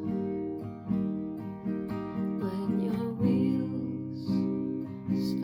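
Acoustic guitar strumming sustained chords, a new strum roughly every second, with no singing.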